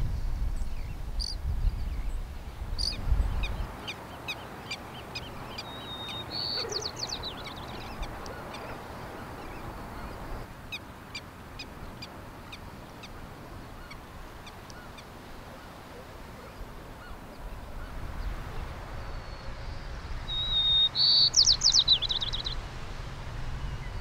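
Birds calling at the shore: scattered short high chirps, and twice a short whistled note that runs into a fast high trill, the second one the loudest, over a low steady rumble.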